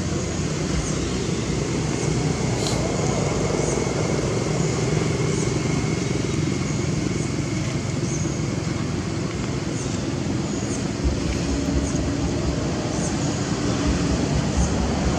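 Steady rumbling outdoor background noise, like passing road traffic, with short high chirps repeating about once a second.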